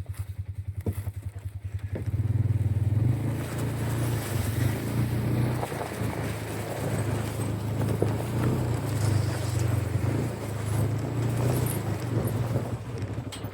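Vehicle engine idling with a fast even pulse, then running louder and steadier from about two seconds in, as the vehicle pulls away.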